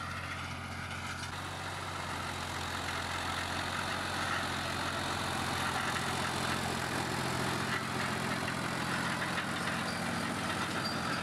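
New Holland Ghazi tractor's diesel engine running steadily under load while it pulls a working rotavator through the soil, growing louder over the first few seconds.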